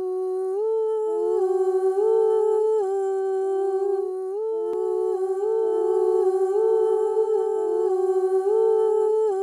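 Voices humming a slow, repeating melody in two overlapping lines, each note held and then stepping to the next.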